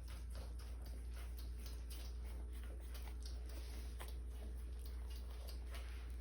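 Young French bulldog puppies moving about, their claws making light, irregular ticking and tapping, over a steady low hum.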